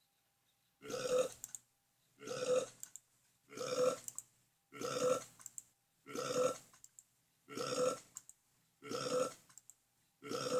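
A cartoon burp repeated eight times at an even pace, about one every second and a bit. Each burp is short and alike in shape, as if the same burp is played over and over.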